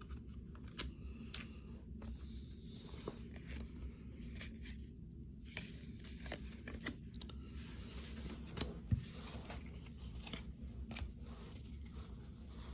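Baseball cards being handled and flipped through by hand, giving scattered light clicks and slides of card on card, with a short rustle about eight seconds in.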